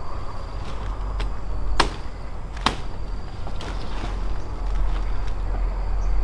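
A few short, sharp strikes, two of them louder, about two and about three seconds in, over a steady low rumble.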